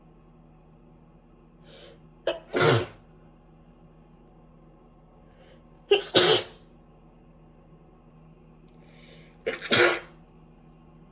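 A woman with a cold sneezing three times, about every three and a half seconds, each sneeze a quick catch of breath followed by a sharp burst.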